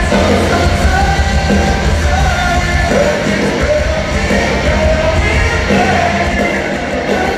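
Live rock band playing through an arena PA: a singer's held vocal lines, each a second or two long, over guitars, bass and drums, heard from far back in the arena.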